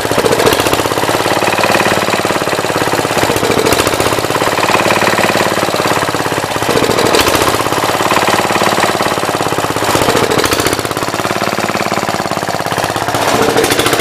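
1966 Gravely Commercial 10 walk-behind tractor's engine running steadily with a rapid, even firing beat, now sparking on a temporarily mounted battery ignition coil after a no-spark fault.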